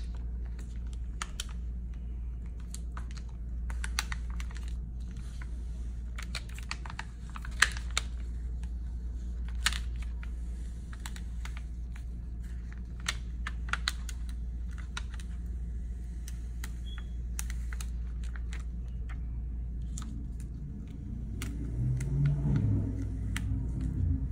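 Small irregular clicks and crackles from iron-on vinyl being slowly peeled off its carrier sheet by hand during weeding, with fingernails touching the plastic light pad. A steady low hum runs underneath, and a low rumble comes in near the end.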